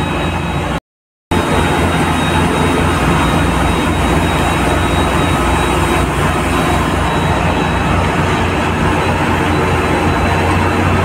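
Motor grader's diesel engine running steadily at road speed, heard from inside the cab with road noise. The sound cuts out completely for about half a second, a second in.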